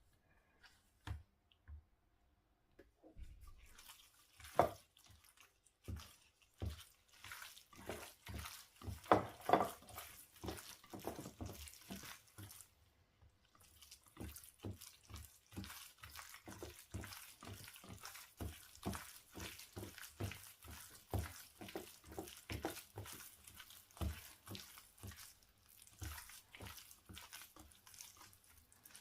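Water running at a kitchen sink, with irregular light knocks and clinks, two or three a second, of things being handled under it.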